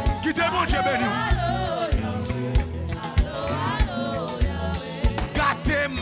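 Gospel worship music: voices singing over a drum kit and bass, with frequent drum strikes.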